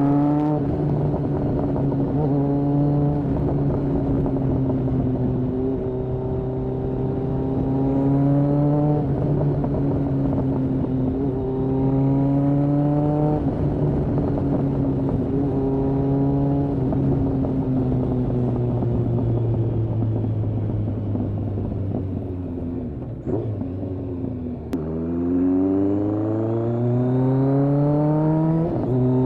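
Kawasaki ZRX1200R's inline-four engine on Yoshimura TMR-MJN carburetors, ridden through the gears: several short rises in pitch broken by gear changes, a long fall as it slows, then a hard pull climbing steeply in pitch near the end.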